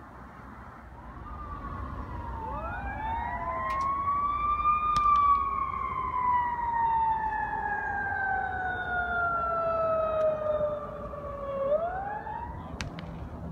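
Emergency vehicle siren wailing: one slow rise to a peak about five seconds in, a long slow fall, then another rise near the end.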